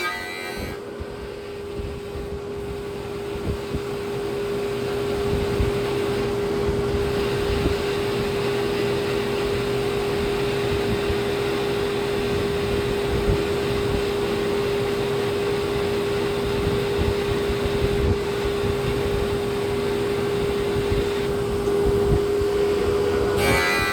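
Custom-built slab planer running steadily with a constant humming tone over a rough rumble, planing a wooden slab as its power feed moves it along the rail. It gets slightly louder about five seconds in.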